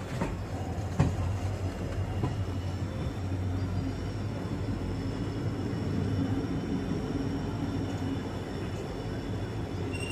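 Train running on the line: a steady low rumble with a few sharp clacks in the first couple of seconds.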